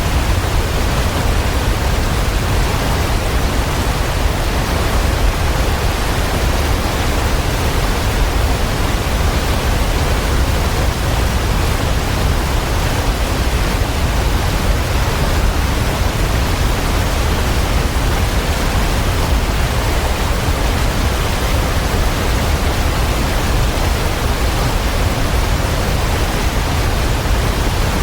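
Waterfall: a steady rush of falling water, with a deep low rumble underneath.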